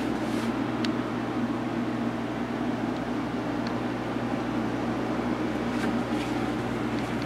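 Steady hum of grow-room fans, a constant low drone with a faint whir that does not change.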